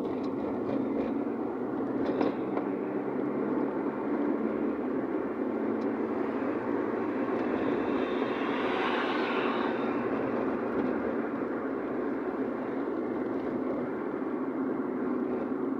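Steady road and engine noise of a car being driven, heard from inside, with a louder swell about eight to ten seconds in.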